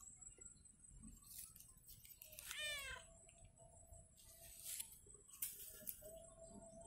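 A domestic cat meows once, briefly, about two and a half seconds in, with a few faint clicks and rustles around it.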